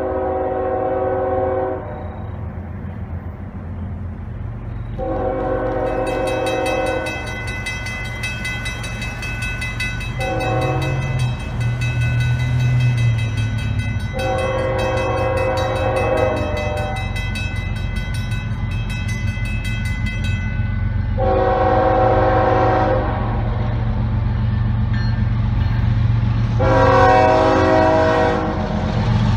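Norfolk Southern GE ES44AC diesel locomotive's air horn blowing for a grade crossing: long, long, short, long, then two more long blasts. The diesel's rumble grows as it nears. A crossing bell rings from about six seconds in until about twenty seconds in, as the gates come down.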